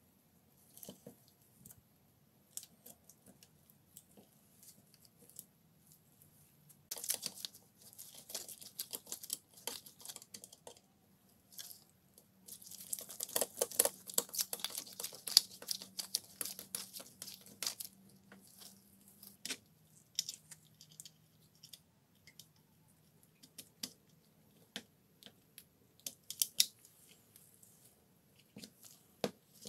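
Handling noises from a plastic drill housing worked by gloved hands: scattered small clicks and knocks. Two longer stretches of scratchy brushing, about seven seconds in and again from about twelve to eighteen seconds in, where a brush scrubs around the gears and motor inside the housing.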